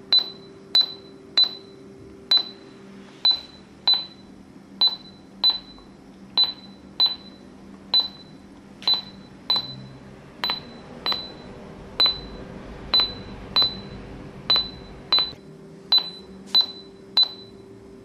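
A heart rate monitor beeps for each detected pulse, picked up by a red LED and light sensor under a fingertip. About 23 short high beeps come at a little over one a second, slightly unevenly spaced, over a faint steady hum.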